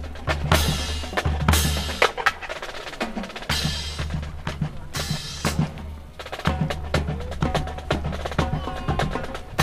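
Drum-heavy percussion with a steady low bass and many sharp, wooden-sounding clacks and knocks, with several bright crashing strikes in the first half.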